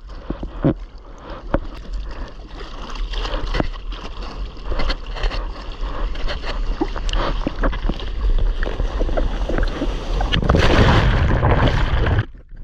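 Sea water splashing and sloshing right at a surfer's GoPro, over a steady low wind rumble on the microphone. About ten seconds in a louder rush of churning white water takes over, then cuts off suddenly near the end.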